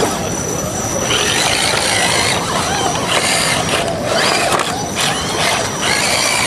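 Electric motors and gear drivetrains of radio-controlled rock crawlers whining in repeated surges as they are throttled, over a steady rush of wind and surf.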